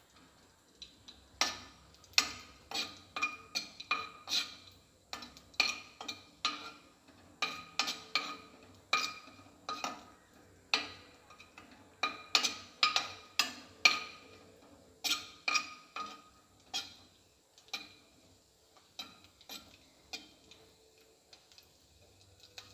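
Steel spoon clinking and scraping against the inside of an aluminium pan while stirring cashews and raisins in ghee: irregular ringing taps, about one or two a second, thinning out near the end.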